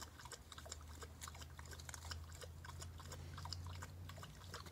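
Pit bull chewing and biting fresh garden leaves: irregular crisp crunches and small snaps of torn leaf, over a steady low hum.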